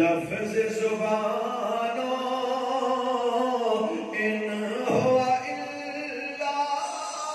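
A man's voice chanting melodically into a microphone, with long held notes that bend gently in pitch.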